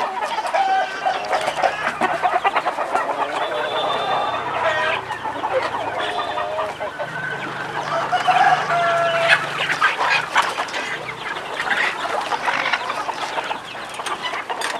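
A flock of free-range chickens clucking and calling over one another, with a few longer held calls among the clucks.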